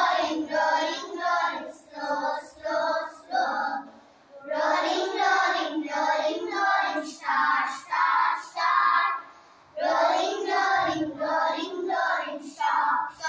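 A group of young children singing an action song together in unison, in short rhythmic phrases with brief pauses between verses about four and ten seconds in.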